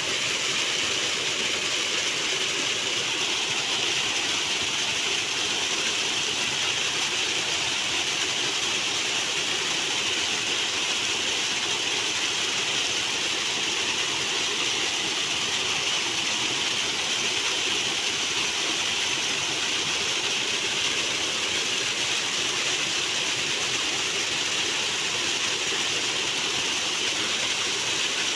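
Flowing water rushing steadily, a loud, even hiss with no breaks or changes.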